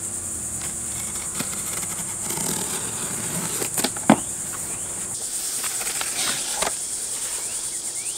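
Cardboard shipping box being opened by hand: packing tape slit and stiff flaps scraped and pulled back, with a sharp snap about four seconds in. Behind it runs a steady high drone of insects.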